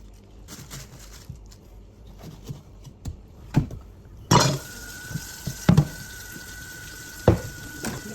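Kitchen clatter of pots and dishes being handled, with a few sharp knocks. About four seconds in, a tap is turned on and water runs steadily with a faint whistling tone.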